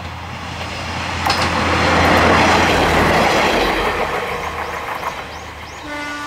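Kanto Railway KiHa 532 diesel railcar passing: the engine and the rumble of its wheels on the rails grow louder to a peak about two seconds in, then fade. A train horn starts near the end.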